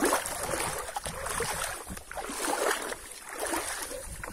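Water sloshing and swishing as a person wades waist-deep through floodwater, surging with each stride about once a second.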